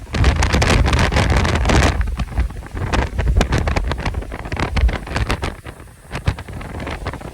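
Santa Ana wind gusting hard against the microphone: a heavy, loud buffeting rumble for about the first two seconds, then easing into choppier gusts broken by scattered sharp pops and crackles.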